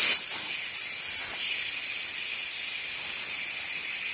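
Electric pressure cooker venting steam through its pressure-limiting valve in a quick release: a steady loud hiss that drops somewhat in level just after the start.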